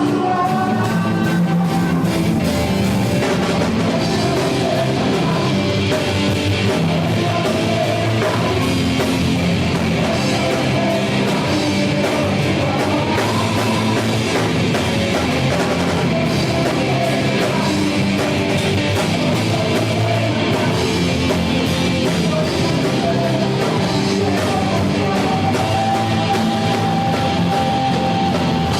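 Live band playing a loud, steady rock-style gospel song, with drum kit, electric guitar and singing.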